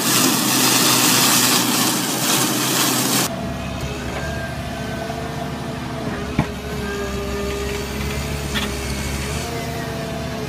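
A tractor-mounted mower running through tall grass with a loud hiss of cutting. About three seconds in it gives way to a wheeled excavator's diesel engine running steadily, with a hydraulic whine that shifts in pitch as its grapple lifts a rock, and a sharp knock a few seconds later.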